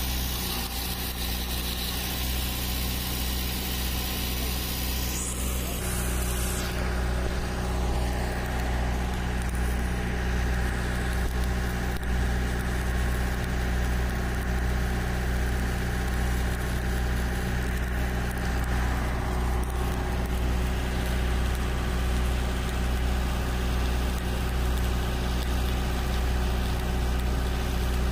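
An engine running steadily with a low, even drone. A high hiss over it stops about six seconds in.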